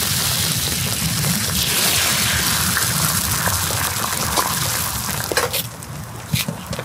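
Beaten egg mixture sizzling in a hot pan, a steady hiss that dies down about five and a half seconds in to quieter, scattered pops and crackles.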